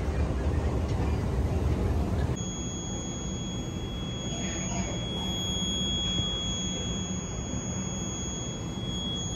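Airport terminal background rumble. About two seconds in it changes to a quieter low hum with a steady, high-pitched whine held on one note.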